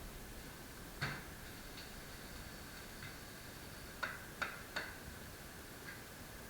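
About five short, sharp clicks at uneven spacing, each with a brief ringing decay, over a faint steady high-pitched whine.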